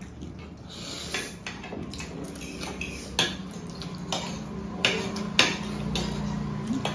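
Metal forks and spoons clinking and scraping against ceramic plates as people eat, with a scattering of sharp clinks, the loudest about three and five seconds in.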